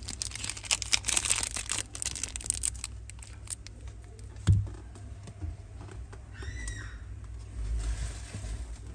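Metal Zippo lighter being handled: a run of quick small clicks and rattles for the first few seconds, then a single thump about halfway, over a steady low hum.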